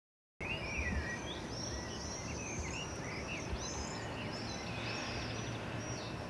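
Many birds calling at once, a dense overlap of short chirps and swooping high calls, over a steady low background rumble; the sound cuts in abruptly at the start.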